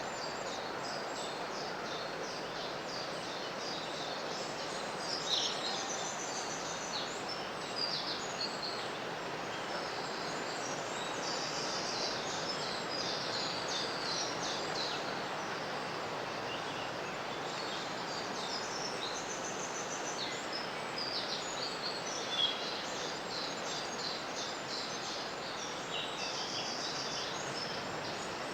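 Woodland ambience: several songbirds singing in short high chirps and rapid trills, over a steady rush of a flowing stream.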